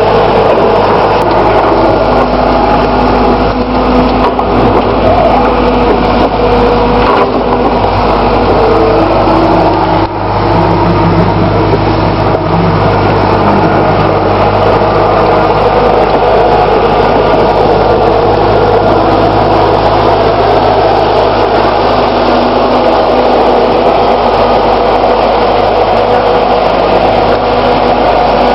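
New Holland skid steer's diesel engine running steadily, its note shifting a few times in the first half.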